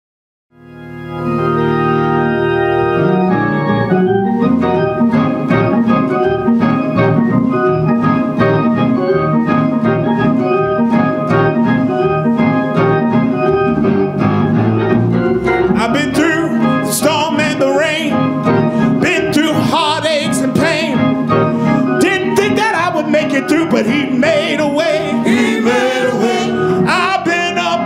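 Organ playing held gospel chords as an introduction; from about sixteen seconds in, singers' voices join over it.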